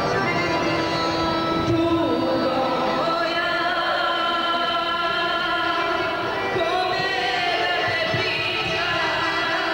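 A woman singing into a handheld microphone, amplified, holding long notes.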